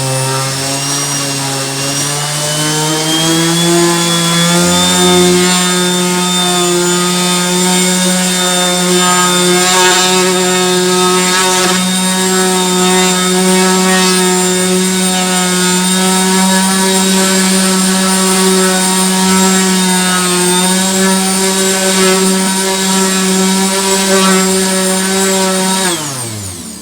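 Parkside PEXS 270 C3 random orbital sander (270 W, 125 mm disc) with a 40-grit disc, sanding rough-sawn wood. Its motor whine climbs to full speed over the first few seconds, runs steady, then falls in pitch as it is switched off and spins down near the end.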